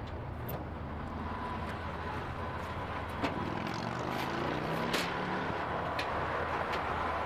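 Car-hauler truck's engine running steadily, its pitch rising a little about three seconds in, with a faint steady whine above it and a few light clicks.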